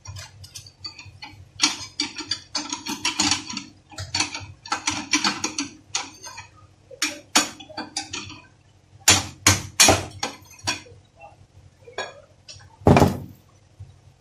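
Hammer striking the metal parts of a Toyota Passo steering assembly held in a bench vise: a run of irregular metallic knocks and clinks. The loudest blows come in a quick cluster about nine to ten seconds in and once more near the end.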